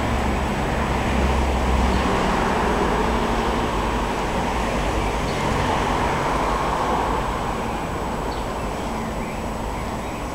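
Steady road traffic noise, with a vehicle engine humming low in the first couple of seconds and a few faint bird chirps.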